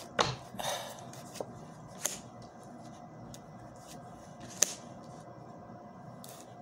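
Tarot cards being handled: a few short, sharp card clicks and slaps, the sharpest about two-thirds of the way through, over a quiet room background.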